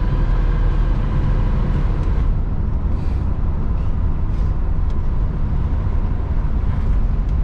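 Engine of a classic American car held at full throttle, a steady heavy rumble, as the car accelerates around a corner without spinning its tires.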